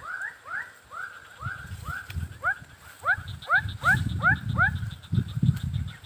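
An animal calling in a fast run of short rising chirps, about three a second, breaking off after about four and a half seconds. Low rumbling bumps sound beneath the calls, and a faint, fast high ticking trill comes in about halfway through.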